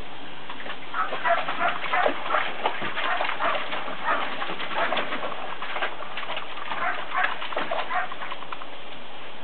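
Border collie puppy wading and splashing through shallow water in a plastic kiddie pool: irregular small splashes and sloshing over a steady watery hiss.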